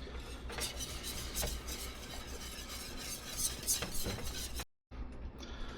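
Spoon stirring thick bechamel sauce in a pot, with soft scraping and a few light clicks against the pot. The sound cuts out briefly near the end.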